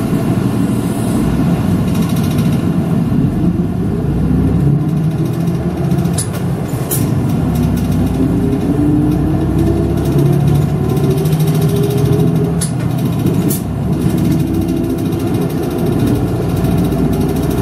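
City bus diesel engine pulling away and accelerating, heard from inside the bus. Its pitch climbs several times as it moves through the gears, with a few light clicks along the way.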